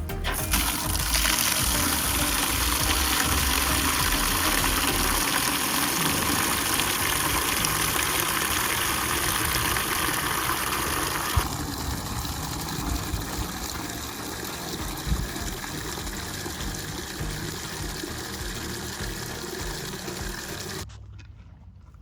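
Steady rush of running water, louder for about the first half, then quieter until it stops abruptly near the end.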